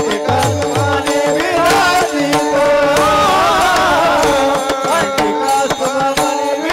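Marathi devotional abhang music: held drone notes under a melody line that glides up and down, with a drum beat in the first second and sharp percussion strikes throughout.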